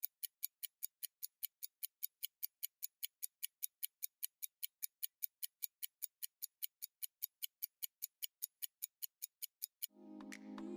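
Mechanical pocket watch ticking, the Swiss lever escapement of a Zenith Calibre 19 N.V.S.I. movement beating evenly at about five ticks a second (18,000 beats per hour). Soft music comes in near the end as the ticking stops.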